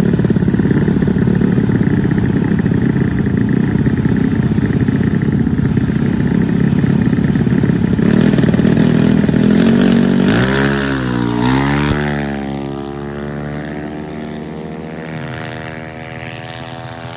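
Yamaha Mio scooter with a bored-up engine running loudly as a dense, steady rumble. About ten seconds in it blips, its pitch swinging up and down a couple of times. It then settles into a lower, quieter steady run.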